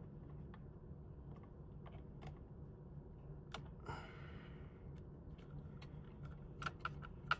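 Faint, scattered small clicks and taps of hands handling the plastic parts and wiring inside an opened CPAP machine, over a low steady hum.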